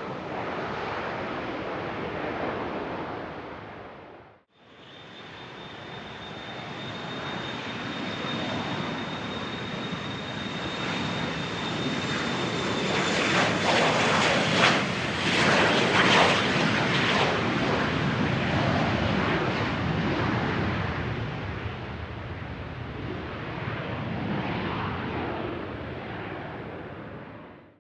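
Jet noise cuts off about four seconds in; then the twin turbofans of a Bombardier Challenger 350 go past: a high whine that sinks slightly in pitch over a roar that builds to its loudest about halfway and slowly fades.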